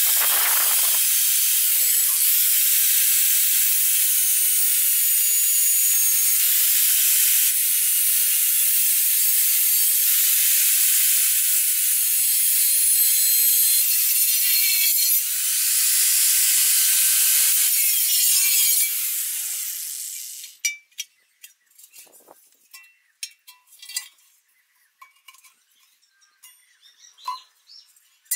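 Angle grinder with a cut-off disc cutting through the steel wall of an LPG gas cylinder: a loud, steady, high-pitched grinding with a short break about halfway, then the disc spins down about two-thirds of the way in. After that come scattered light metallic knocks and clinks as the cut cylinder is handled.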